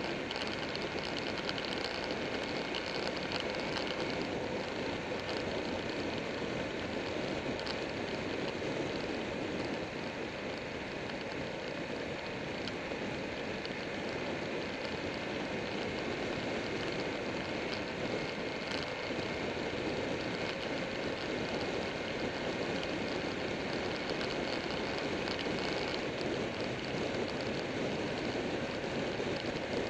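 Steady rush of wind and road noise from a Buell 1125R motorcycle riding at an even speed, holding level throughout.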